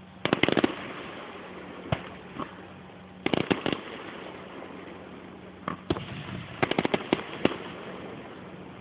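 Aerial fireworks shells going off: sharp bangs and crackles, in three quick clusters with single reports between them.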